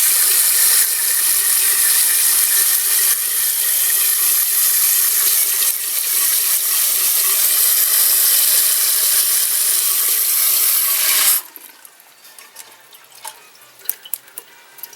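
Toilet tank refilling through a new Fluidmaster 400A fill valve, a loud steady hiss of rushing water that cuts off suddenly about eleven seconds in as the valve shuts at the set water level. Small faint ticks and drips follow.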